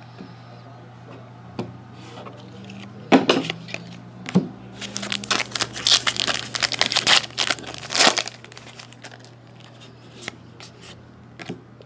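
A foil trading-card pack being torn open and its wrapper crinkled by hand, loudest for about four seconds from around the middle, with light clicks of cards being handled before and after.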